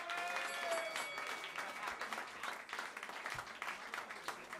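Audience applauding after a joke, with a high, drawn-out shout from the crowd over the first second; the clapping slowly thins out.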